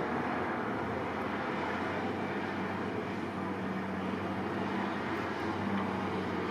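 A vehicle engine running steadily with a low hum, under a steady rush of wind and road noise.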